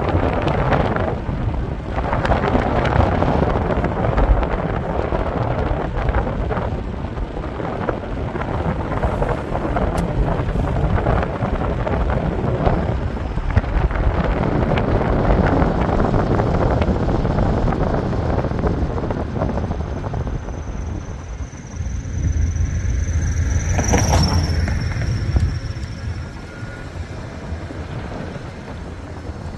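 Wind buffeting the microphone in gusts over a low rumble, with a brief high squeal about three-quarters of the way through.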